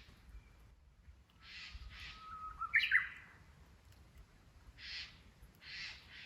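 Japanese bush warbler (uguisu) singing once, about two seconds in: a held whistle that breaks into a quick, higher flourish. Short rustling crunches of footsteps on dry fallen leaves come before and after the song.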